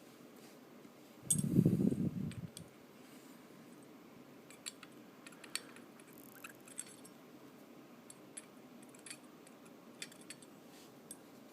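A muffled bump and rustle about a second in, then scattered light metallic clicks and clinks as small tools and the pistol's slide are handled on the bench.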